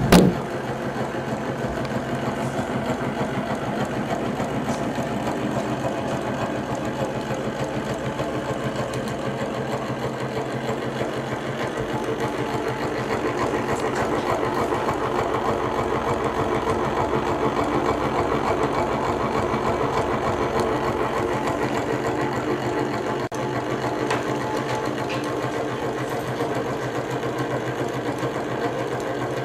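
Homemade hot-air (Stirling) engine running steadily, its crank, linkages and pistons making a fast, even mechanical clatter.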